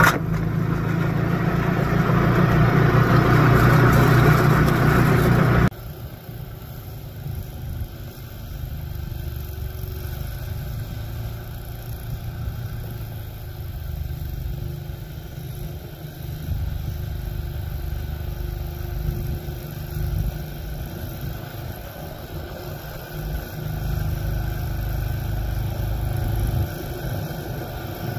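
Small snowblower's engine running steadily under load as it throws heavy, wet snow. It is loud at first, then drops sharply and sounds more distant about six seconds in.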